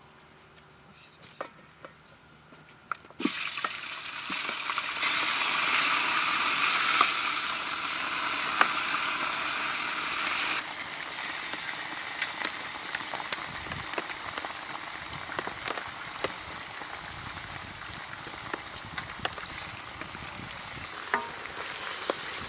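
Raw lamb pieces hit a hot cauldron and start sizzling loudly and suddenly about three seconds in. After about ten seconds the sizzle eases to a steady frying hiss with scattered crackles as a wooden ladle stirs the meat.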